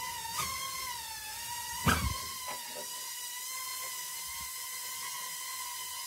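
Small ducted FPV drone (BetaFPV Pavo20) flying indoors, its motors and propellers giving a steady high whine that wavers slightly in pitch. A single short thump comes about two seconds in.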